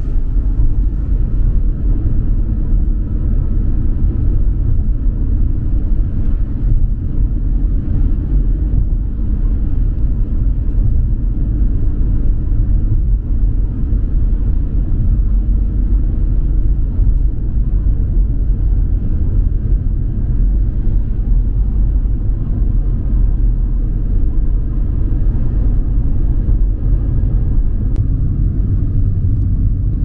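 Car driving at a steady speed: a continuous low rumble of road and engine noise.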